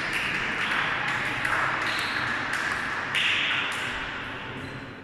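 Table tennis balls clicking off tables and bats, about two sharp ticks a second, over a steady hiss of hall noise.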